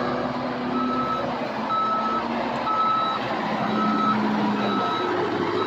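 Excavator's travel alarm beeping about once a second over the steady running of its diesel engine as the machine moves.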